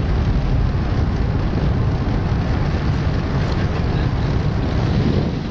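Steady road noise of a moving car: a continuous low rumble of engine and tyres.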